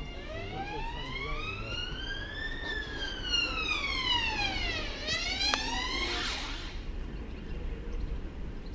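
Emergency vehicle siren wailing: one slow rise in pitch, an equally slow fall, then the start of another rise that fades out about six seconds in, over a low steady background rumble.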